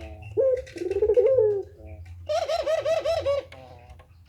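Puter pelung dove, a Barbary dove variety, cooing. A drawn-out coo comes about half a second in, then a rapid wavering, rolling coo about two seconds in.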